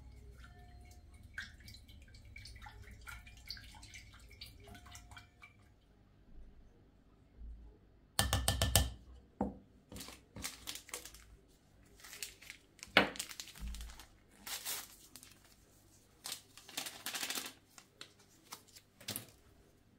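Wire whisk beating a liquid egg-and-oil mixture in a ceramic bowl, a run of light clicks and taps that stops about five seconds in. After a short lull, a series of short, louder rustling bursts as flour and other dry ingredients are tipped into the bowl and a packet is handled.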